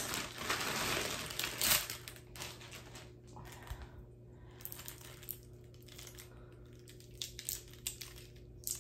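Plastic packaging crinkling for about the first two seconds, then scattered light clicks of plastic markers being handled and knocking against each other.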